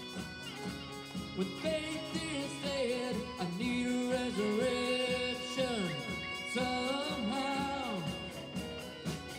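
Live worship band playing a song: voices singing over acoustic guitar and band accompaniment.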